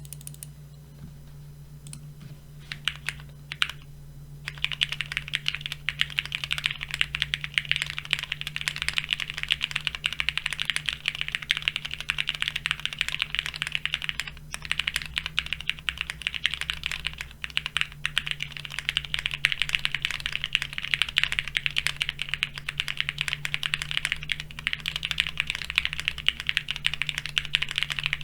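Mechanical keyboard typing on a plateless, foamless, gasket-mounted Neo70 with Cherry MX Red linear switches and Cherry-profile keycaps: a few scattered keystrokes, then steady fast typing from about four seconds in.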